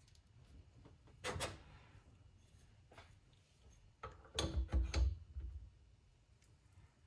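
Metal parts of a manual valve seat cutter clicking and knocking as they are fitted together on the cylinder head: a short double click a little over a second in, then a cluster of heavier knocks with a dull thump between about four and five seconds in.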